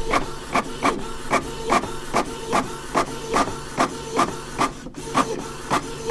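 A rhythmic mechanical clatter, sharp strokes about two and a half times a second, over a steady hum.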